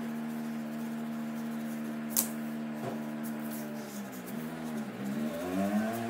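A steady low motor hum with a strong pitch, dipping and rising twice near the end, with one sharp tap about two seconds in.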